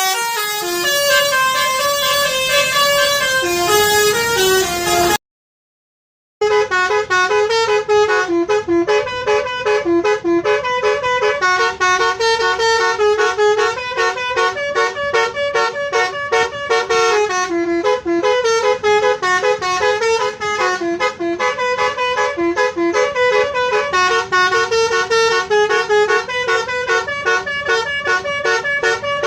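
Tour bus's multi-tone 'telolet' horn playing a fast melody of short, stepping notes. It breaks off for about a second around five seconds in, then carries on.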